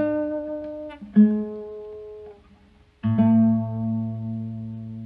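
Acoustic guitar played slowly: three chords, one at the start, one about a second later and one after a short pause near the middle, each left to ring and die away. The last rings longest.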